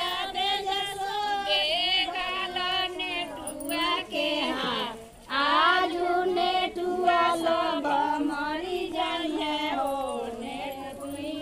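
Women's voices singing a traditional folk song together, with a short break about five seconds in.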